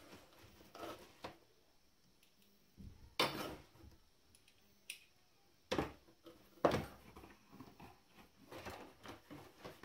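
Hands rummaging through a cardboard box of loose parts: scattered rustles, taps and knocks, the loudest a few sharp knocks about three, six and seven seconds in.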